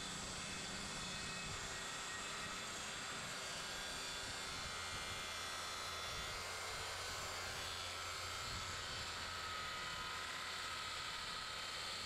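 Corded circular saw running steadily as its blade cuts through a pressure-treated 2x12 board.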